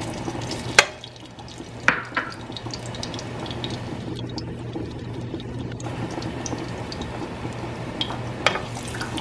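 Canola oil heating in a grill pan, sizzling faintly around a small test piece dropped in to check whether it is hot enough for deep-frying. A few sharp clicks come about a second in, around two seconds in and near the end, over a steady low hum.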